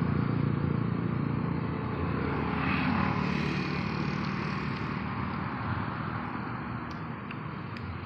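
A motor vehicle passing on the road, its engine and tyre rumble loudest at first and slowly fading away.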